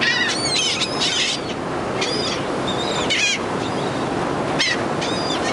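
Seagulls giving a string of short, high calls one after another over the boat, above a steady rush of wind and the ferry's churning wake.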